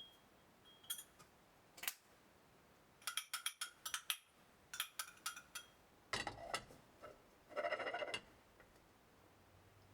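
Light kitchen clicks and clinks of utensils and dishes during cooking prep: a few single clicks, a quick run of clicks about three seconds in, then two short rattling clatters.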